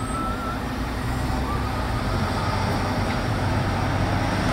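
Steady city street traffic: a low engine rumble from vehicles at a busy intersection, growing slightly louder toward the end.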